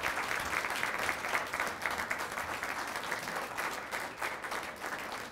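Audience applauding: many people clapping together.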